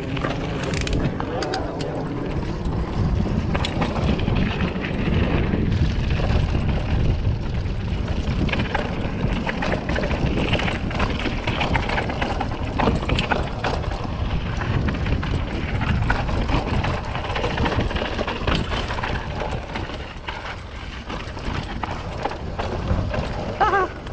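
Specialized Rockhopper 29 mountain bike riding down a rough dirt trail: tyres rolling over the ground with a constant clatter of rattles and knocks from the bike over bumps, and wind rumbling on the microphone.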